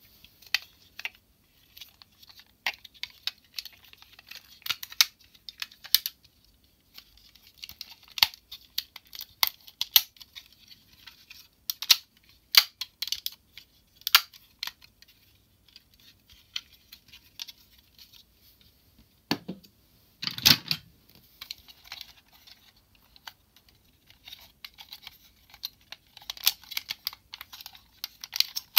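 Hard plastic parts of a DX Tousai Zyuoh combining-robot toy clicking, snapping and rattling as they are handled, pulled apart and fitted together. The clicks come at irregular intervals, with a louder knock about two-thirds of the way through.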